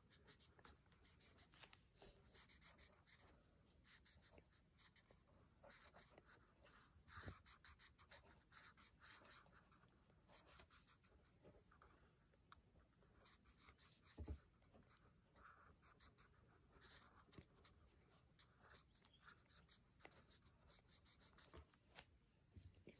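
Faint, quick scratching strokes of a liquid chalk marker's felt tip colouring on black card, with a couple of soft thumps, the louder about 14 seconds in.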